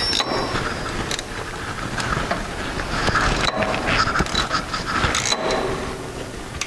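Socket ratchet wrench clicking and metal scraping as a bolt is tightened down into a tractor floorboard and the part is straightened, over steady low background noise.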